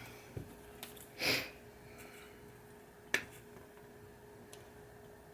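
Quiet handling noises: a few light clicks, one sharp click about three seconds in, and a short breathy sniff about a second in, over a faint steady hum.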